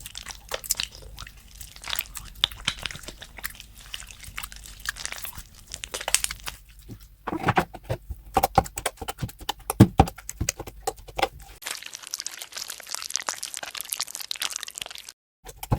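Slime being squeezed and pressed by hand, giving a dense run of crackling clicks and pops. The pops grow louder through the middle, and the sound changes about 12 seconds in, with a short break near the end.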